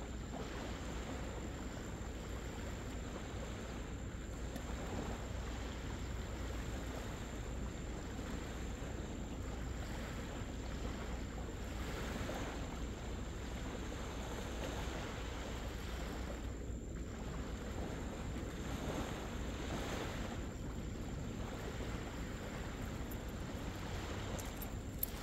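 Small waves washing on a sandy beach in a steady, gently swelling hiss, with a low wind rumble on the microphone.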